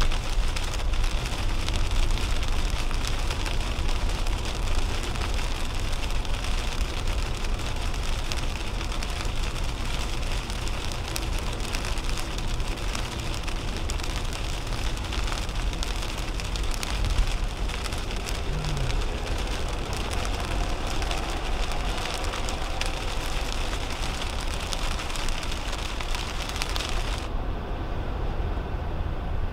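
Heavy rain pattering on the windshield and roof of a 2010 Toyota Camry at highway speed, heard from inside the cabin over a steady low rumble of tyres on wet road. About 27 seconds in, the rain hiss cuts out suddenly as the car passes under an overpass, leaving mostly the road rumble.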